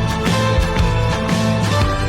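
Background music with a steady beat and sustained notes over a bass line.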